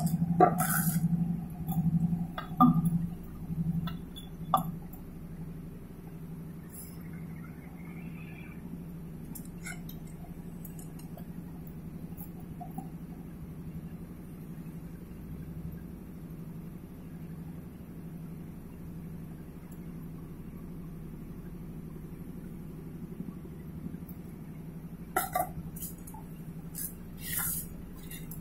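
Metal clinks and knocks as cylindrical metal electrode canisters are handled and set in a metal lid: a cluster of them in the first few seconds and another near the end, over a steady low hum.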